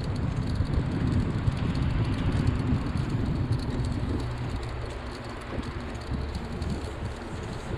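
Rough, uneven low rumble of a bicycle riding along a concrete path: tyre and frame noise mixed with wind buffeting the microphone, a little louder in the first few seconds.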